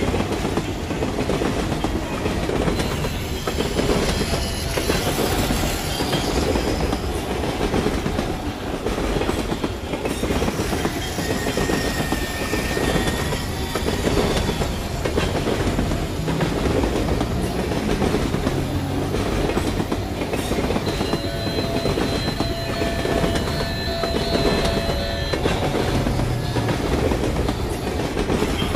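Battery-powered toy train running on plastic track: a steady motor whir with rapid clicking as its wheels cross the track joints.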